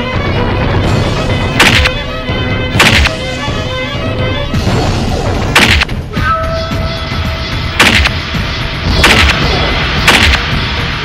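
Heavy punch and kick sound effects, six sharp hits one to three seconds apart, over background music.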